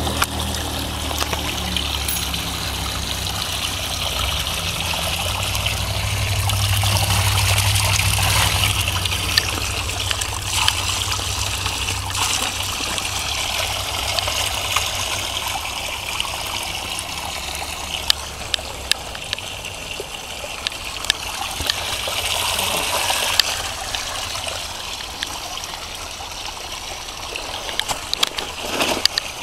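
Spring water pouring steadily from the mouth of a white plastic pipe and splashing onto rocks and gravel below. A low rumble runs under it in the first half, and a few sharp clicks come in the last third.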